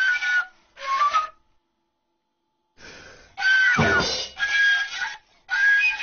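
Chinese bamboo flute (dizi) played in short phrases of high held notes, broken by pauses and a silent gap of just over a second. There is a brief falling slide about four seconds in.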